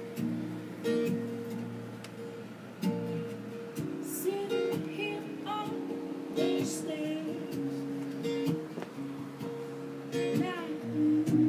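Guitar strummed in chords, each stroke followed by ringing notes.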